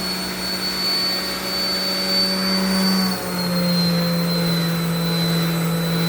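Electric sander running steadily with a high whine, sanding cured epoxy pour fill; its pitch dips slightly about three seconds in.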